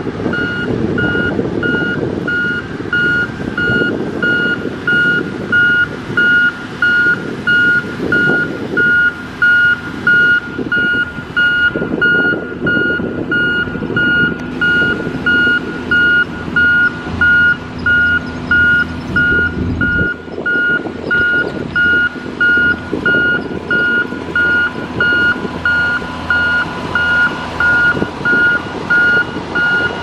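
Reversing alarm on a heavy earthmoving machine beeping about once a second, over the low running of its diesel engine.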